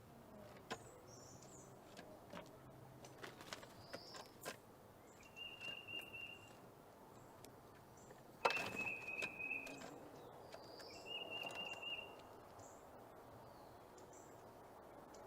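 Small songbirds calling: three short buzzy calls on one note, a few high chirps between them, and scattered sharp clicks and taps, the loudest about halfway through.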